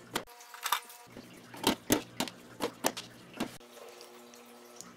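Plastic grow pods and sponges handled and pushed into the holes of a hydroponic grow deck, giving about ten short clicks and taps, most of them between one and three and a half seconds in.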